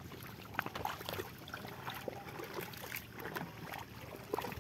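Legs and hands working through thick wet mud and shallow water, with irregular squelches and small splashes, as people wade and grope for fish in a drained pond bed.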